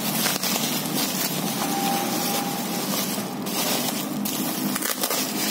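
Thick black plastic bubble wrap crinkling and crackling as it is handled and pulled open by hand, over a steady low hum.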